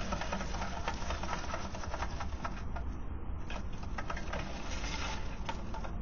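A bird's wings fluttering and dry twigs rustling as it lands on its heap of nest material and moves about: rapid crackly ticking in two bursts with a short pause a little past halfway, over a steady low hum.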